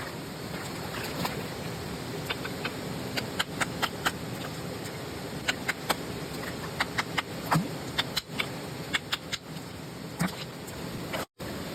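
Hand digging in rocky ground: irregular sharp clicks and knocks of a tool and stones striking rock, over a steady rushing background.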